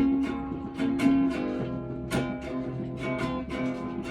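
Acoustic guitar strumming chords, an instrumental passage between sung verses of a folk-style song.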